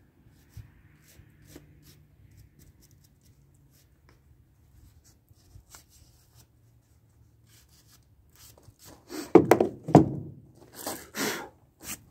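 Faint small clicks and scrapes of hand work on rusty vise parts. From about nine seconds in come several loud metal clunks and scrapes as the heavy round cast-iron base plate of a Reed bench vise is shifted on the wooden bench.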